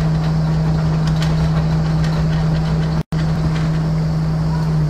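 Tour boat's engine running steadily, a low even hum with a fixed pitch, briefly cut off for a split second about three seconds in.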